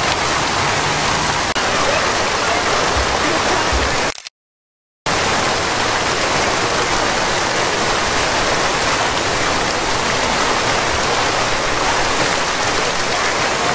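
Fountain water jets, spouting from dog sculptures, splashing into the basin: a steady, full rush of water. The sound cuts out completely for under a second about four seconds in.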